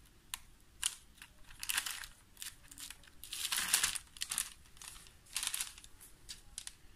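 Knife spreading soft spreadable cheese along a bread loaf: a run of short, irregular scraping strokes, with the parchment paper underneath crinkling as the loaf is handled.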